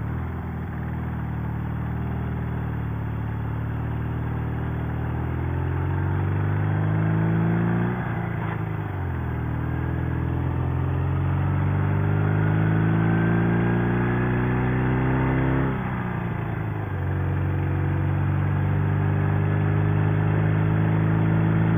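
Chinese 650 cc overhead-valve flat-twin sidecar motorcycle engine, a copy of the WWII German BMW, pulling away and accelerating. Its pitch climbs steadily, drops sharply at two upshifts about 8 and 16 seconds in, then climbs again. An even rush of wind and road noise runs underneath.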